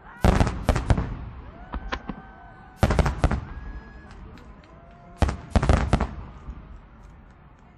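Aerial firework shells bursting in three quick clusters of sharp bangs, about two and a half seconds apart, with fainter scattered pops and crackle between the clusters.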